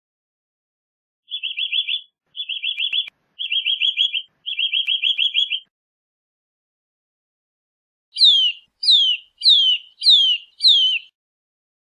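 Bird calls: four quick trilled phrases of clear, rapid notes, then after a pause five clear whistles that each slide downward in pitch.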